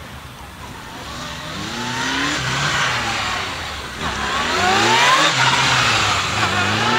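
Large police motorcycle engine revving in repeated short rising throttle blips as it is ridden through tight, slow cone turns. It grows louder as the bike comes close, loudest about five seconds in.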